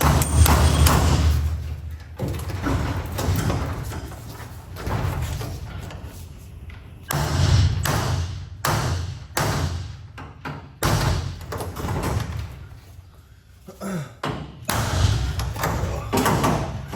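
Irregular thuds and knocks from work on a garage door and its hardware, with some heavier, longer low rumbles among them.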